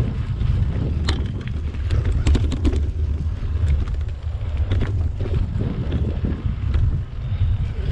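Wind buffeting the microphone of a camera on a mountain bike riding dirt singletrack, a steady low rumble, with scattered clicks and rattles from the tyres and bike over leaves and twigs on the trail.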